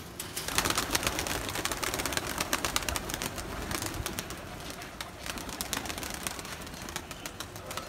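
A flock of high flyer pigeons flapping and clapping their wings as they take off and land, a dense rapid clatter in the first half that thins out to scattered bursts later.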